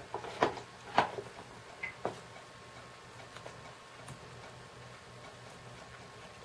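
A few sharp clicks in the first two seconds, then faint ticks, from hands working the small toy gear motor and its polarity-reversing switch on a DIY antenna-panning rig, over a faint steady hum.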